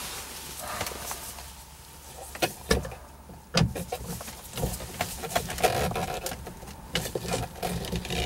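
Scattered clicks and knocks of hard plastic interior trim being handled and pushed at a car's overhead console, several sharp taps in the middle and more light rattling near the end.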